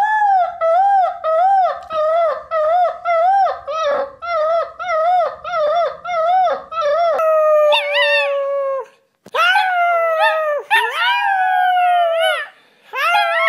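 Basset hound puppy howling in a run of short notes that each rise and fall, about two a second. About seven seconds in, a small black-and-tan dog takes over with longer drawn-out howls that slide down in pitch.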